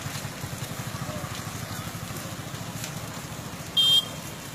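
A small vehicle engine running with a steady low pulsing, and a short, loud electric horn beep near the end.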